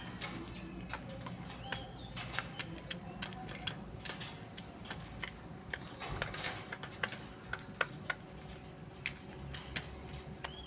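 Quail pecking rapidly at grains of brown rice: a quick, irregular run of sharp tapping clicks, with a brief faint chirp or two.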